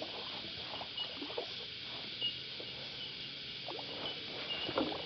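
Cicadas droning in a steady chorus, with short faint chirps repeating every second or so, over scattered small ticks and knocks.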